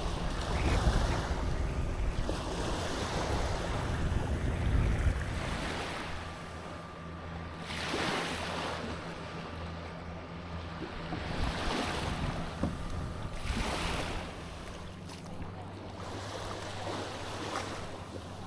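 Small waves washing onto a sandy beach, swelling and falling back every few seconds. Wind buffets the microphone in the first few seconds, and a steady low hum runs underneath.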